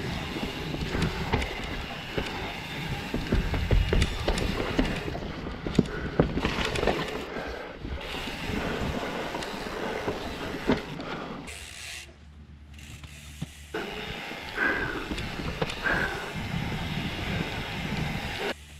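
Santa Cruz Hightower CC mountain bike ridden down a rooty dirt trail: tyres rolling over dirt and roots, the bike rattling, with many sharp knocks from bumps and wind on the microphone. It goes quieter for a couple of seconds about twelve seconds in, and the noise drops off suddenly near the end.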